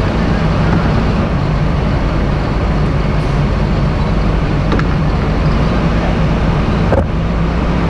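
Large self-propelled crop sprayer's diesel engine running steadily as it drives slowly past, with two short clicks in the last few seconds.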